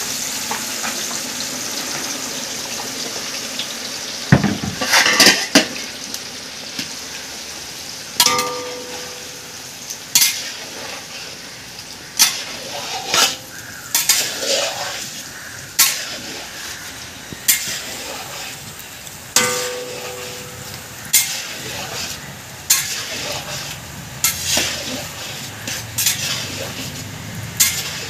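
Raw banana slices sizzling in hot oil in a large iron kadai, the frying hiss strongest at first as they go in, then easing. A long metal spoon stirring them clinks and scrapes against the pan every second or two.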